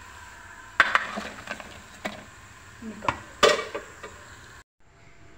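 Metal spoon clinking and scraping against a frying pan and a plate as fried gram-flour pakoras are lifted out of the ghee: several sharp clinks, the loudest about a second in and again about three and a half seconds in, over a steady low hiss that cuts off suddenly near the end.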